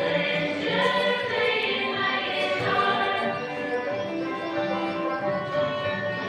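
Music with a group of voices singing together in sustained, choir-like notes.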